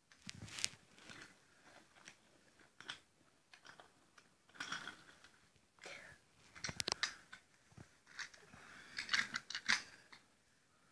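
Wooden toy train track pieces being handled and fitted, giving scattered light clicks, knocks and clatter with some rustling, in small clusters rather than a steady sound.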